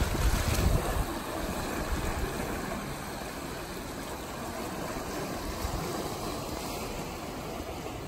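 Small sea waves washing and splashing over shoreline rocks, a steady wash with no distinct breakers. Wind buffets the microphone for about the first second.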